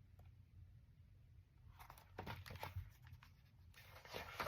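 Faint paper rustling of a picture book's page being turned, in two short stretches.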